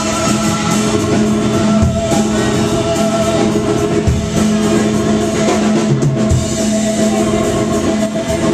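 A live band playing loud, steady amplified music: electric guitar over a drum kit, with kick drum hits marking the beat.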